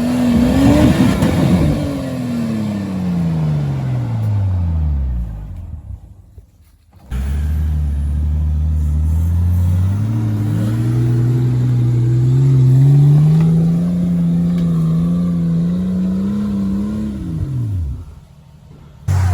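Off-road 4x4's engine revving up, then falling away and fading out. It cuts back in abruptly, running under steady load with its pitch climbing slowly for about ten seconds, then drops off and cuts out near the end.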